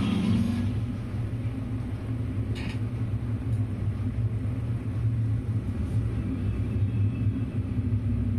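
A steady, low, engine-like rumble with an even hum.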